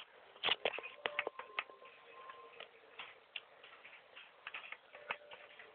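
Irregular clicks and taps of a phone being handled, several close together in the first second and a half, then sparser.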